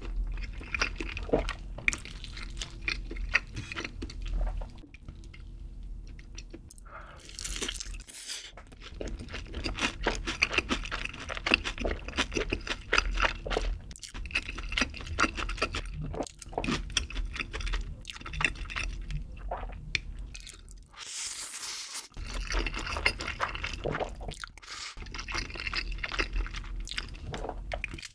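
Close-miked wet chewing of a mouthful of sauce-coated black bean instant noodles (jjajang ramen), with sticky mouth smacks and clicks, and a couple of short hissy stretches of slurping.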